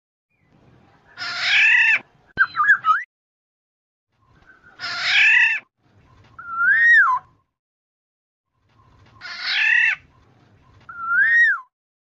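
Black-naped oriole calling: three times, about four seconds apart, a harsh scratchy call followed by a short fluting whistle that rises and falls.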